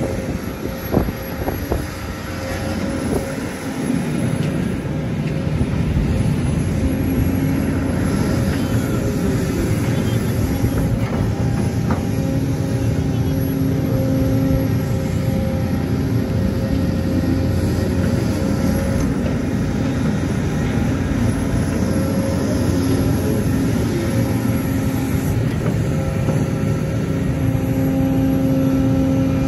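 Sumitomo hydraulic excavator's diesel engine running steadily under working load, its note growing louder and easing off at intervals as the hydraulics work. A few sharp knocks come in the first two seconds.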